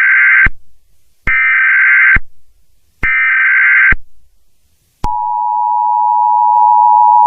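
Emergency Alert System tones: three short, screechy digital data bursts about a second long and evenly spaced (the SAME header), then from about five seconds in the steady two-tone attention signal.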